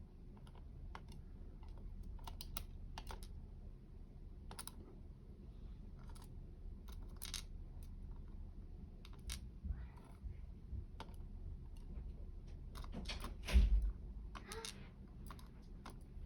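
Small, irregular metallic clicks and taps from pins and tools being handled while a dimple lock is taken apart, with a heavier thump near the end.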